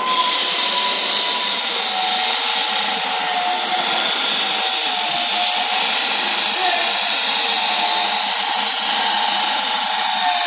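Lägler floor sanding machine running steadily as it sands solid parquet, with a high motor whine that wavers slightly in pitch over a constant grinding hiss.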